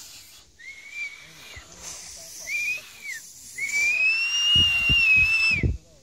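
Acorn-cap whistle blown through cupped fingers: three high-pitched whistles, two short ones and then a longer, louder one of about two seconds. Each bends up as it starts and falls away at the end, over a breathy hiss.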